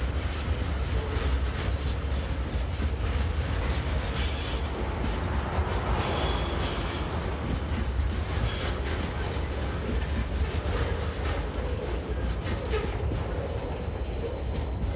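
Loaded container wagons of a freight train rolling past on curved track: a steady low rumble of wheels on rail, with stretches of high wheel squeal about four and six seconds in and shorter ones later.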